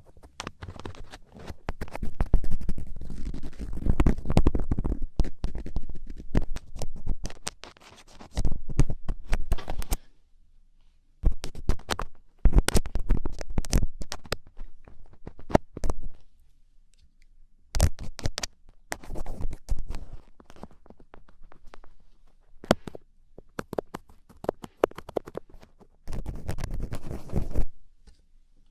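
Thin ear pick scratching and scraping in an ear, in bursts of rapid strokes with short pauses between them.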